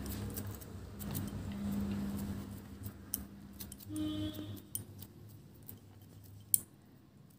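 Faint taps and clicks of fingers pressing and patting a soft patty of spiced mashed raw banana and potato into shape on a plate, with one sharper click about six and a half seconds in.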